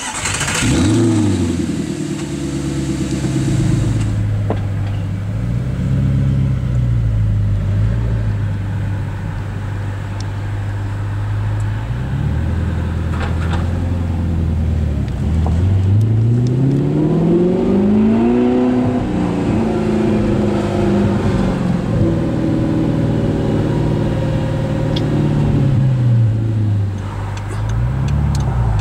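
Audi R8 V8 with an Armytrix aftermarket exhaust starting up with a loud flare that drops to a steady idle, with a couple of short revs. It then pulls away, its note rising steadily through a hard acceleration, holding, and falling off again, heard from inside the cabin.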